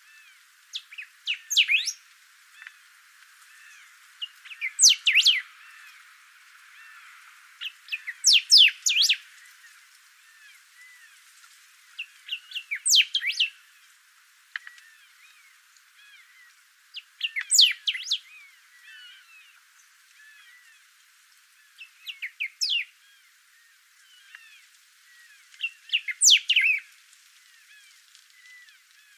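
Thick-billed saltator (bico-grosso) singing: seven short phrases of whistled notes, about one every four seconds, over faint chirping in the background.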